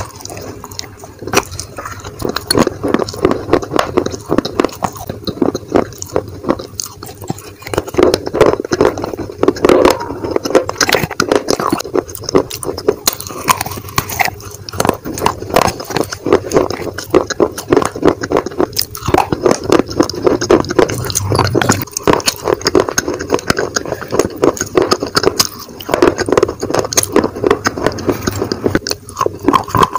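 A person biting and chewing crunchy dry clay pieces: a dense, irregular run of crunches.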